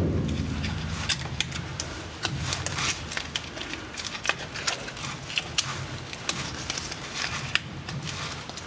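Scattered light metallic clicks and rattles at irregular intervals, from driveline parts and tools being handled.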